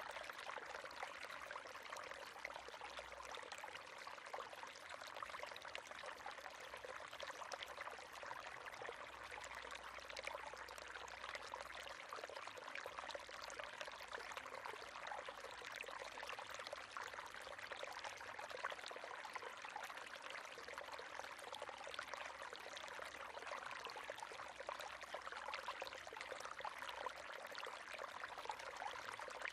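River water flowing steadily: a continuous rush with many small splashes and trickles.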